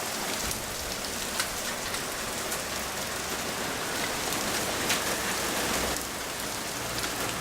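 Heavy rain pouring down, with individual drops striking a nearby surface in sharp ticks, close to hail but not. A low rumble sits underneath from a few seconds in.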